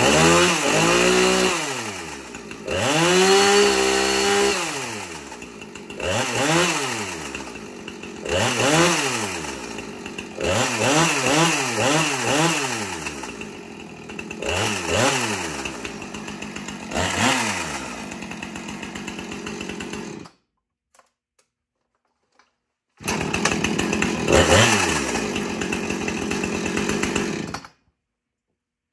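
Husqvarna 455 Rancher chainsaw's two-stroke engine idling and being revved in quick blips, about ten times, each rise in pitch falling straight back to idle. About two-thirds of the way in the sound cuts off abruptly, then returns for a few more seconds of running with a rev before cutting off again near the end.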